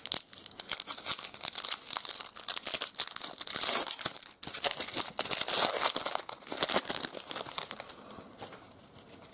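A foil trading-card pack wrapper being torn open and crinkled in the hands: a dense, crackling rustle that thins out near the end once the cards are out.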